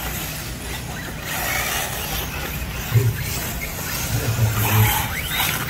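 Radio-controlled off-road trucks racing around a dirt track, heard as a steady noisy wash of motors and running gear. A short rising whine comes near the end, typical of a motor speeding up.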